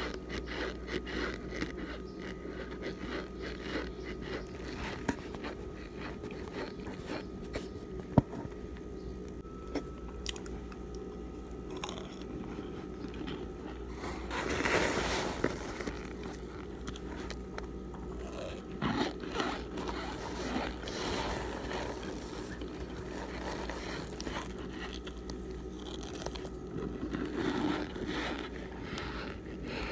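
Crunching and chewing of chalky Argo starch chunks: repeated crisp bites and crackles, louder about halfway through. Fingers scrape and rummage through the dry chunks in their container.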